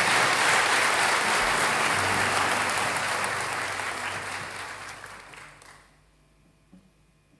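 Audience applauding, the clapping fading away over a couple of seconds near the end to near silence with a faint hum.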